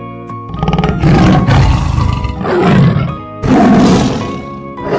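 Tiger roaring and growling in three long, rough bouts over light background music.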